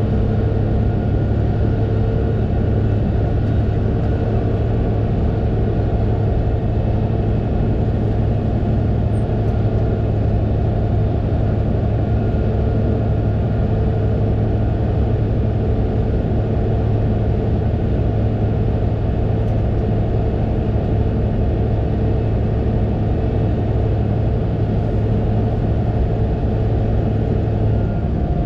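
Fendt 936 Vario tractor's six-cylinder diesel engine running at a steady speed: a constant low drone with a faint higher whine above it.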